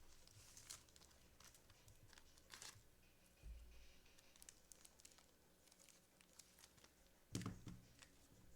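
Faint rustling and crinkling of trading cards and their plastic packaging being handled, with scattered small clicks and one louder knock about seven seconds in.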